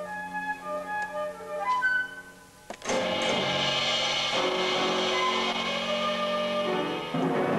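Contemporary chamber-ensemble music played live: a flute plays short, scattered notes over a held low note. About three seconds in, a sharp attack opens a dense, sustained chord of many held tones.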